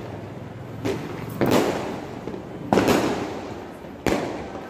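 Firecrackers bursting: a small pop about a second in, then three loud bangs about a second and a half apart, each with a short fading tail.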